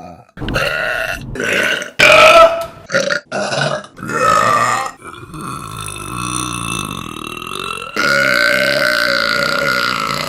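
Women burping, one clip cut sharply into the next: a quick string of short burps, then two long, drawn-out ones.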